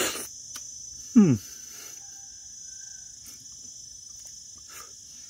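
Steady high-pitched chirring of insects. About a second in, a man lets out one short, loud 'mmm' that falls in pitch, a sound of relish as he eats.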